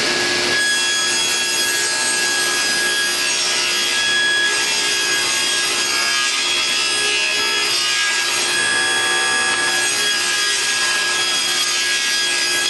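Table saw with a ripping blade cutting a board on edge, making the second rabbet cut that frees the waste strip: a loud, steady saw whine over the noise of the blade in the wood, unchanging throughout.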